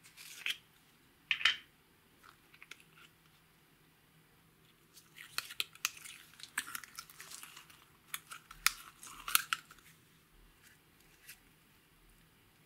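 Star-shaped plastic slime container crackling twice as it is squeezed, then sticky blue slime squelching with quick runs of small sharp pops and crackles as it is pulled out and stretched by hand.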